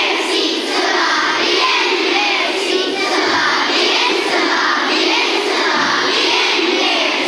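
A large group of schoolchildren answering together in a loud chorus of many voices, in a chant-like unison reply to the teacher's greeting.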